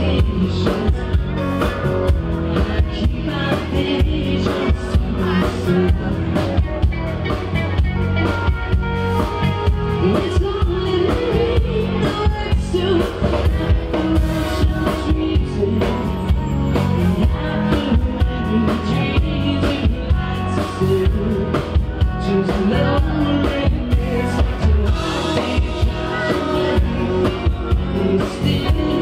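Live rock band playing: electric guitar, electric bass and a drum kit, loud and steady, with held guitar notes over a regular drum beat.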